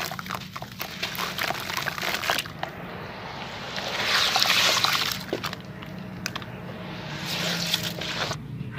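Hands crumbling wet sand-cement concrete lumps in a tub of water: gritty crackling and water sloshing, with the sloshing loudest about four seconds in.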